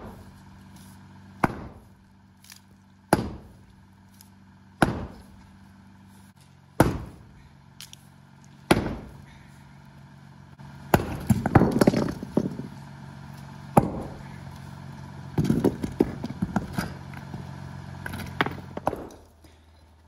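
Sledgehammer striking old, very hard poured concrete: five single blows about two seconds apart, then a rougher run of hits. An engine idles steadily underneath until near the end.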